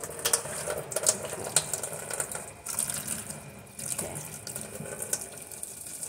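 Kitchen tap running into a sink while dishes are rinsed by hand, with a few sharp knocks of the dishes in the first two seconds. The water goes quieter for about a second in the middle.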